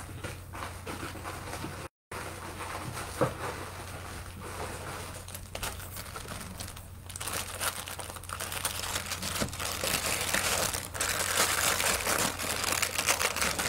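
Plastic jewelry packaging crinkling and rustling as the next necklace set is handled and unwrapped. The crinkling is denser and louder in the second half.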